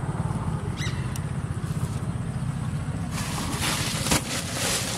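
A low steady rumble like a distant engine. From about three seconds in, rustling from bait being handled in the plastic basin and bag, with a single sharp knock a little after four seconds.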